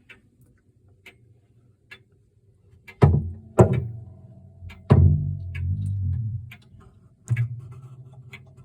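Hermle 451-050 grandfather clock movement ticking faintly about once a second, then several hard knocks inside the clock case, each followed by a low ringing that lingers for a second or two.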